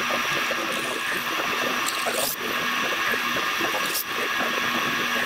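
Milling machine drilling into a round metal bar: a steady run of the spindle and the cutting noise of the bit, with a faint hum and a couple of sharp ticks about two and four seconds in.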